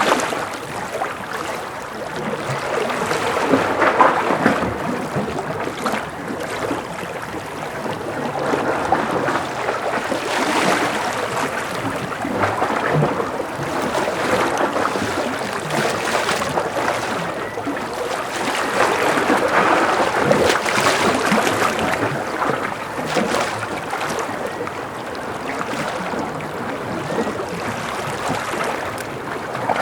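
Gentle ocean waves lapping and splashing against a breakwater, swelling and easing every few seconds.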